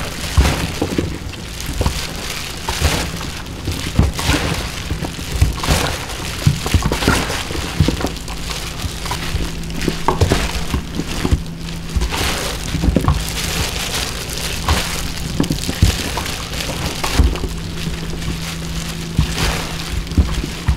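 Ponytail radishes and their greens being hand-mixed with red pepper seasoning in a plastic basin for chonggak kimchi: a continuous wet, crackling rustle of vegetables and plastic gloves, with irregular small snaps and squelches.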